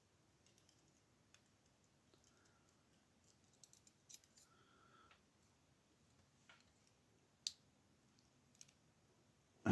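Faint, scattered small metallic clicks and ticks as pins and springs are taken out of the chambers of a disassembled ASSA lock. There is a short cluster of clicks a few seconds in and single clicks near the end, with near silence between them.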